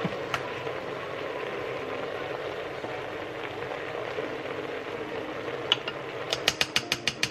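Browned beef and pork belly sizzling steadily in the bowl of a Cookeo electric multicooker as flour is sprinkled over them, with a quick run of about eight sharp clicks near the end as the utensils knock against the pot.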